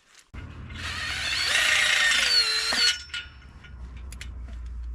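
Power drill driving a screw into a fence pole. The motor runs for about two and a half seconds, rising in pitch before it stops, and a few light clicks follow.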